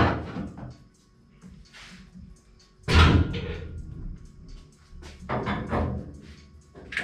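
Heavy metal clunks and knocks as an engine is shifted about on its mounts in an aluminium boat hull, several in all, the loudest a deep thud about three seconds in. Music plays in the background.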